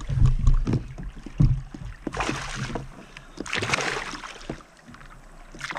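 A hooked fish thrashing and splashing at the surface beside a fishing kayak, in two bursts of splashing about two and three and a half seconds in. Low thumps in the first second or so before that.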